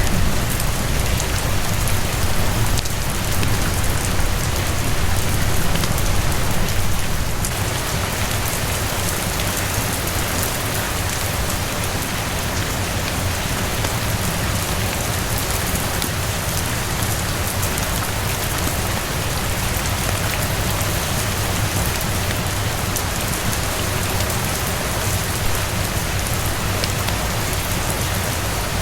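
Steady rain falling, with scattered faint ticks through it; it is a little louder for the first seven seconds or so, then holds even.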